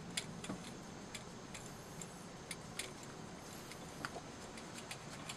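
Faint, irregular metallic clicks and ticks as the threaded valve assembly of a Kaliber Cricket air rifle is turned out by hand, the Allen wrench in its port knocking lightly against the metal.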